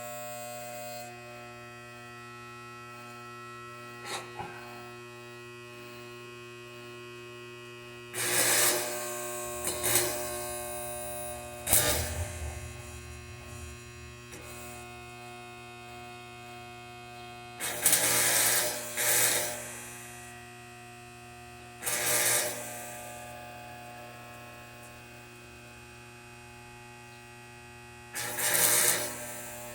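Stick-welding machine humming steadily, broken by about six short bursts of arc crackle, each under a couple of seconds, as small tack welds are laid on the fan's iron base.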